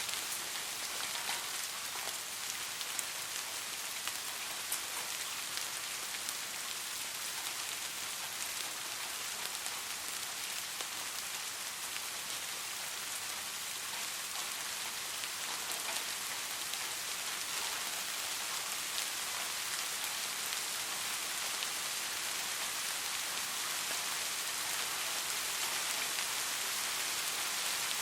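Steady rain falling on a surface, a dense hiss with scattered individual drop ticks.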